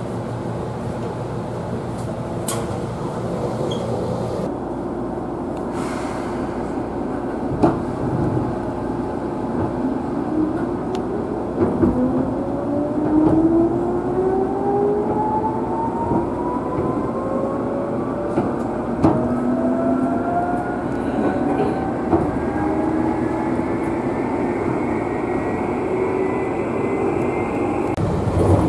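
Seibu New 2000 series electric train pulling away, heard from inside the car: after about ten seconds of steady standing hum, the traction motor whine starts and rises steadily in pitch as the train gathers speed, with a few sharp clicks along the way.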